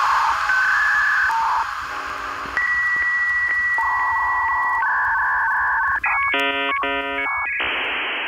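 Electronic outro music that turns into a dial-up-modem-style handshake: steady beeps and a warbling tone, then a quick chatter of stacked tones about six seconds in, then a hiss of static that fades out.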